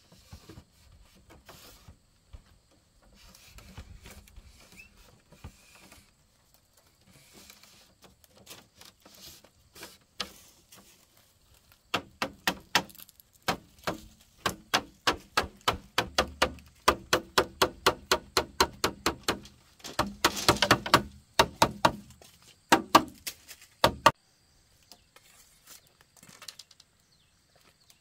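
Quick, evenly spaced tool strikes on bamboo, about four a second, start about halfway through and run for several seconds. A short scraping burst follows, then a few more strikes. Soft rustling and light knocks come before them.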